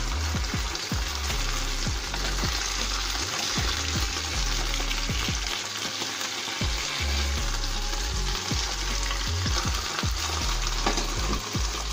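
Beef loin chops sizzling steadily in hot oil and soy sauce in a frying pan. Short clicks and scrapes of metal tongs against the pan come now and then as the chops are turned.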